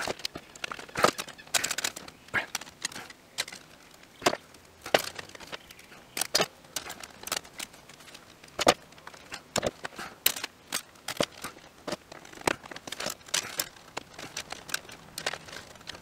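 Irregular clicks, scrapes and crinkles of stiff electrical wire being bent and routed by hand inside a metal breaker panel.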